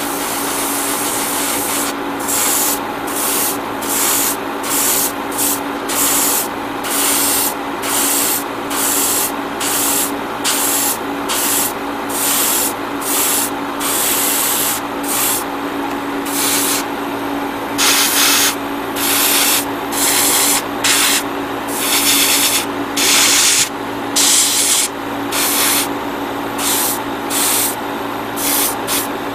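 Iwata Neo gravity-feed airbrush spraying paint in repeated short bursts of hiss as the trigger is pulled and released, about one a second, with a few longer passes, over a steady hum.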